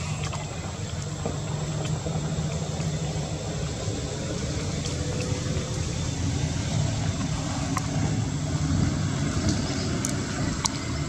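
Steady low engine hum, with a few sharp clicks.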